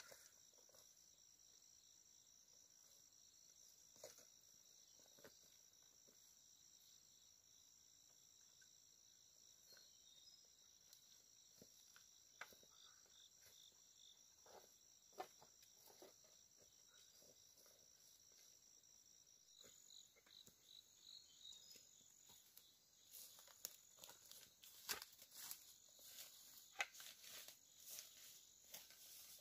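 Faint, steady high-pitched drone of forest insects, with scattered light clicks and taps that become more frequent in the last few seconds.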